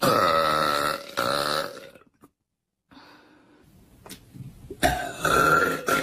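A woman's loud, pitched burps. One long burp breaks about a second in and trails off, and another burp comes near the end.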